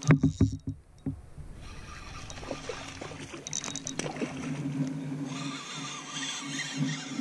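A cast with a spinning rod and reel: a few sharp knocks and clicks in the first second as the rod swings and the line goes out. Then the spinning reel is cranked to retrieve the line, a steady whir that grows stronger about five seconds in.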